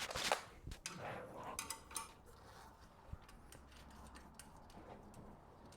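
Faint metallic clicks and light knocks from handling the bed frame's bars and fittings, clustered in the first two seconds, then only a few soft ticks.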